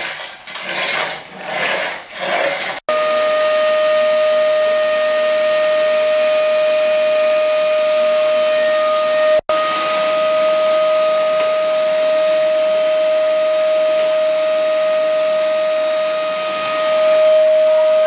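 Canister vacuum cleaner running, starting about three seconds in: a steady high whine over rushing air that breaks off for an instant near the middle.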